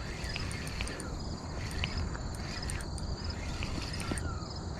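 Crickets chirping in a steady run of high, repeated chirps, over a low rumble.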